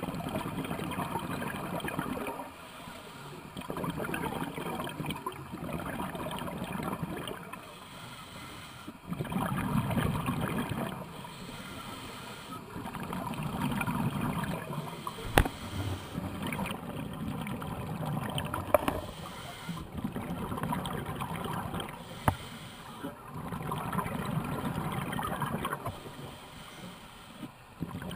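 Underwater scuba breathing: bursts of bubbling from a diver's regulator exhaust, each lasting about two seconds and coming every three to four seconds, with a couple of sharp clicks midway.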